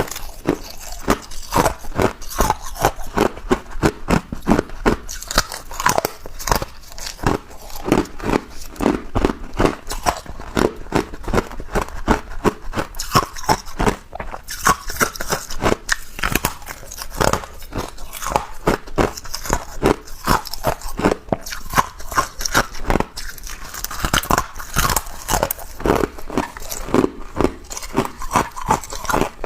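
Hard ice being bitten and chewed close to the microphone: a dense run of sharp crunches and cracks, several a second.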